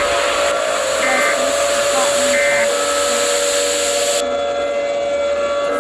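Emergency-alert-style audio: a steady tone layered with loud hiss and three short higher beeps about 1.3 s apart. The hiss cuts off suddenly about four seconds in, leaving the tone.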